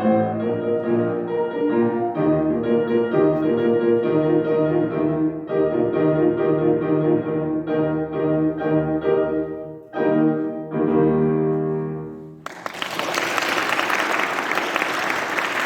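A piano piece played to its end, closing with sustained chords about twelve seconds in, then an audience applauding.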